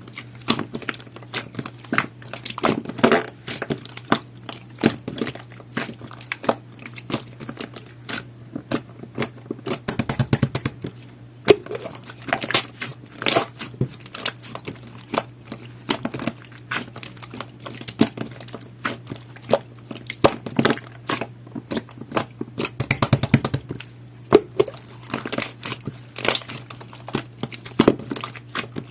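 Jelly-textured slime being squeezed and pressed by hand, giving irregular sticky clicks, pops and crackles, with rapid runs of small pops about ten seconds in and again near twenty-three seconds.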